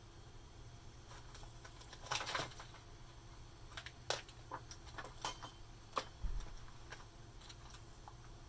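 Scattered clicks and small rattles of objects being handled on a desk, a cluster about two seconds in and single sharp clicks later, with one low thump a little past six seconds, over a steady low hum.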